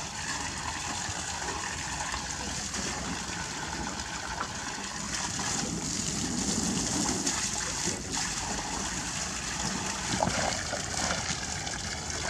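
Water from a garden hose pouring into a partly filled inflatable pool: a steady splashing gush of water onto water.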